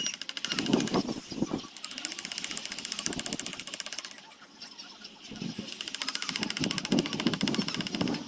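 A small motor-driven tool running with a fast, even rattle, with a dip in level about halfway through.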